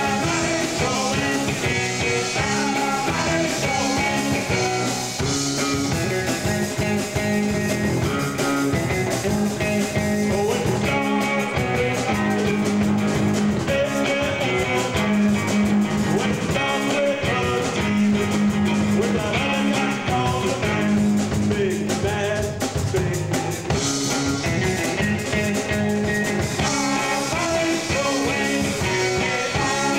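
Rock band playing: electric guitars over a drum kit, continuous and loud.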